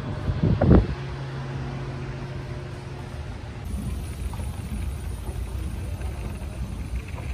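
Steady low mechanical hum, with a loud short bump under a second in. From about three and a half seconds in, a steady low rumble of a running escalator.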